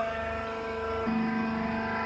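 Baling machine running with a steady mechanical hum; its pitch drops to a lower note about a second in.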